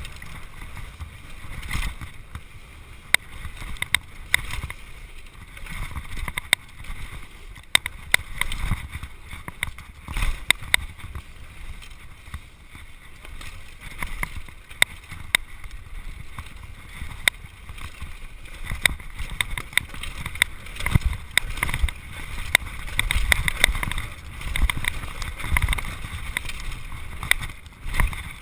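Mountain bike ridden fast down a rough dirt trail, heard from on the bike: continuous rattling with frequent sharp clacks and knocks as it hits bumps, under a steady rush of tyre and wind noise on the microphone.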